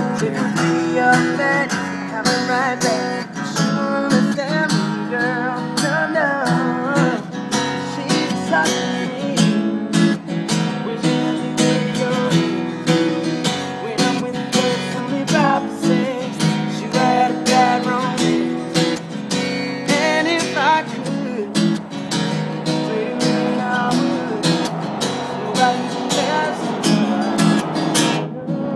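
Acoustic guitar strummed in a steady rhythm, with a man singing over parts of it.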